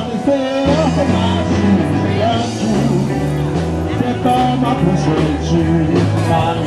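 Blues band playing, with a walking bass line under the melody and singing.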